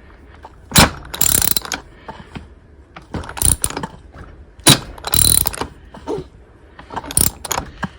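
A 1957 Johnson 18 hp outboard being cranked over by hand, a few turns in a row, each one a short ratcheting clatter from the starter or crank mechanism, about six in all. The cranking tests the newly fitted upper crankcase seal for leaks.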